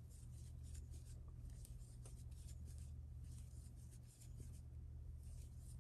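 Faint scratchy rubbing and light irregular ticks of a crochet hook working yarn through single-crochet stitches, over a steady low hum.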